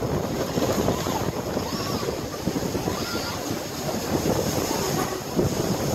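Wind buffeting the microphone over the steady rush of waves and water along a sailing catamaran's hulls under way.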